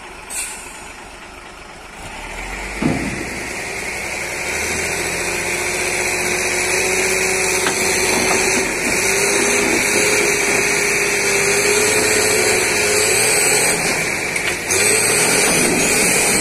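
Hino truck's diesel engine running under heavy load, building up over the first few seconds and then holding a steady drone as it hauls on a tow cable to right an overturned truck. A single knock about three seconds in.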